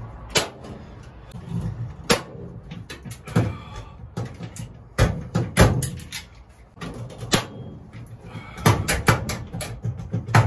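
Hand pop-rivet gun squeezed again and again, setting 3/16-inch pop rivets through an aluminum angle into the truck bed wall: sharp clicks and snaps every second or two as the handles close and the mandrels pop.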